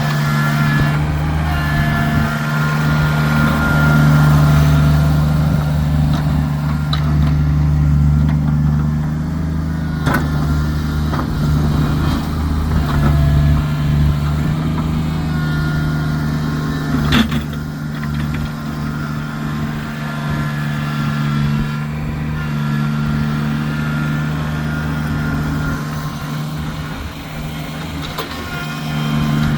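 Kubota tractor engine running steadily while snow plowing, with a couple of sharp knocks partway through.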